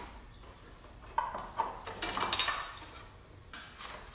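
Light metallic clinks and rattles of metal brake lines and a wrench knocking against the fittings and chassis, in short flurries about a second in, just after two seconds, and once more near the end.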